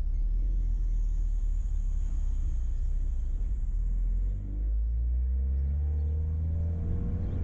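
Steady low rumble of a vehicle driving along a road. About halfway through, a pitched engine note comes in, rising and bending in pitch.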